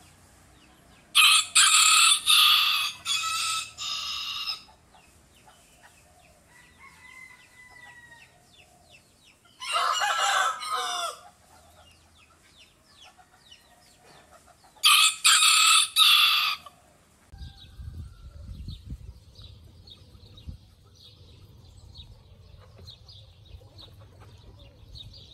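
A rooster crowing three times, each crow lasting a couple of seconds with pauses between. After the third crow comes a low rumble with faint, even high chirring in the background.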